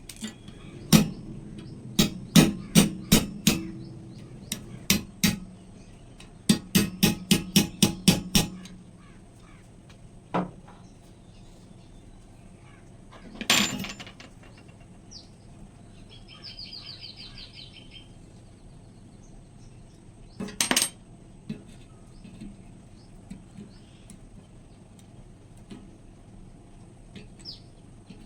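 Hammer blows on metal, in quick runs of sharp strikes during the first eight seconds or so, then a few single knocks spaced several seconds apart.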